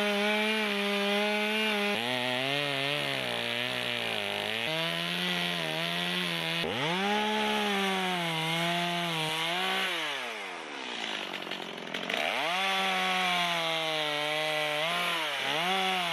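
Stihl two-stroke chainsaw cutting into a tree stump at high revs, its engine pitch wavering as the chain bites the wood. About ten seconds in the engine drops back toward idle, then revs up again and carries on cutting.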